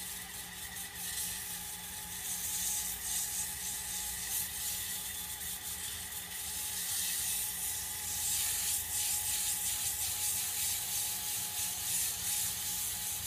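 Microlux power sander running steadily, its sandpaper hissing against the walnut planking of a model ship hull over a steady motor hum.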